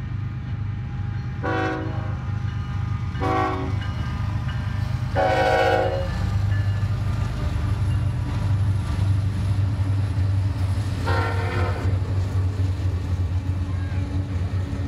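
Union Pacific diesel locomotives passing at the head of a double-stack container freight, their engines giving a steady low drone. The lead unit's air horn sounds four blasts: two short ones in the first few seconds, a longer one about five seconds in, and another near eleven seconds.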